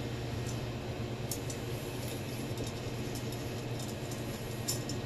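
A steady low hum, with faint scattered clicks and ticks from the metal parts of a turbocharger being handled by hand.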